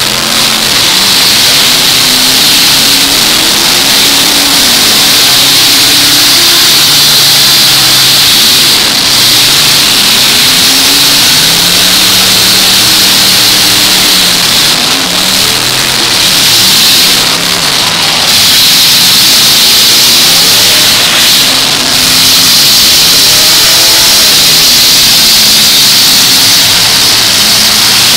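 Several demolition derby trucks' engines revving up and down at once, their rising and falling pitches overlapping in a loud, continuous roar.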